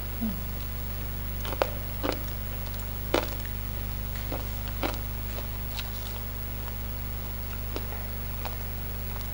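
Close-up eating sounds: scattered wet clicks, smacks and crunches of chewing raw greens and papaya salad eaten by hand, the loudest about one and a half to three seconds in, over a steady low hum.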